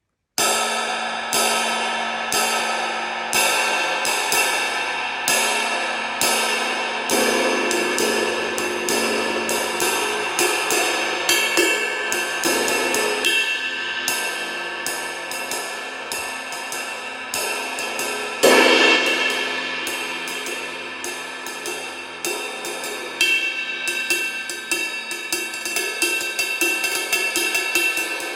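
Early-1950s Turkish-made Zildjian 22-inch ride cymbal being played: spaced single strokes at first, then a faster ride pattern, with the wash ringing on under the strokes. One harder accent comes about two-thirds of the way through.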